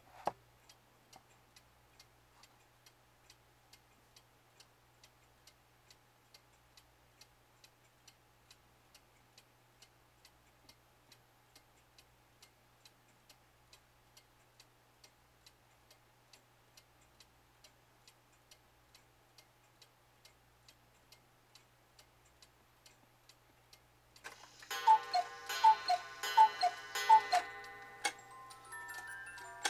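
Schmeckenbecher woodchopper cuckoo clock ticking steadily, about two ticks a second. About 24 seconds in, it starts its hourly strike: a brief whirring rush of the strike train and bellows, then a run of two-note cuckoo calls, high then low, with ringing. Near the end, a music-box tune begins.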